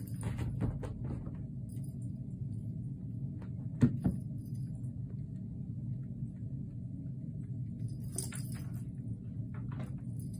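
A kitten batting a jingle-ball toy hanging from a scratching post: a small bell jingles briefly near the start and again about eight seconds in, with two sharp knocks about four seconds in, over a steady low hum.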